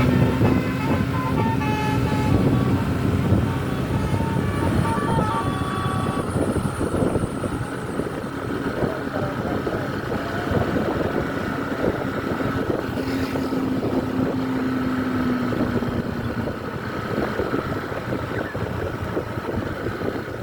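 Bus telolet horns play quick runs of short changing notes over the steady noise of the buses' engines and the road. The runs of notes fall in the first few seconds, and a lower horn tone is held for a few seconds twice.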